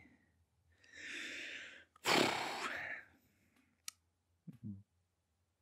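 A man breathing in and then letting out a long sigh close to a microphone, followed by a single mouth click and a short low hum.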